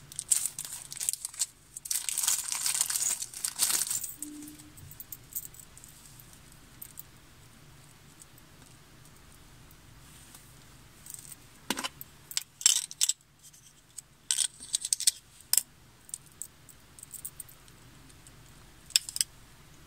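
Small plastic packet crinkling and rustling as it is handled and opened, loudest in the first few seconds, followed by a quiet stretch and a scattering of light clicks and rustles as the contents are handled.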